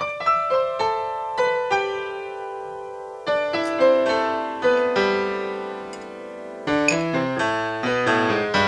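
Background piano music: a melody of single struck notes that ring and fade, with lower notes joining in about two-thirds of the way through.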